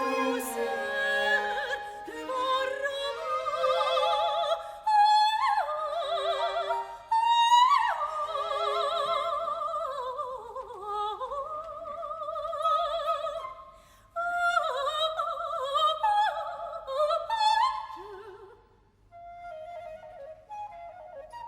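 High operatic voice singing a Baroque opera aria with wide vibrato and quick ornaments, accompanied by a period-instrument orchestra. Near the end the voice stops and softer instrumental lines continue.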